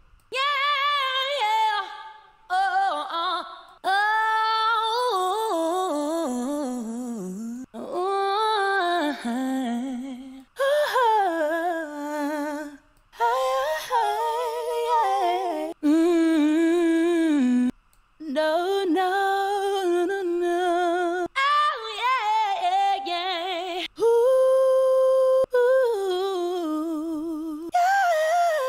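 Female vocal chop samples previewed one after another: about a dozen short, wordless sung and hummed phrases with wavering vibrato. Each stops and the next starts abruptly.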